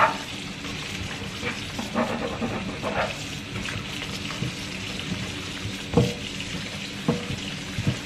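Kitchen tap running into the sink while dishes are washed by hand, with a couple of sharp clinks of dishware near the end.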